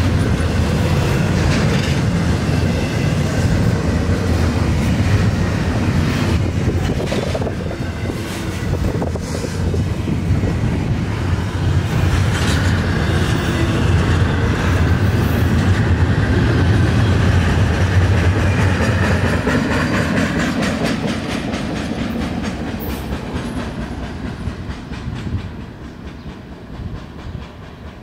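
Double-stack intermodal container well cars of a freight train rolling past, with a low rumble and repeated clacking of the wheels over the rail joints. The sound fades over the last several seconds as the end of the train passes and moves away.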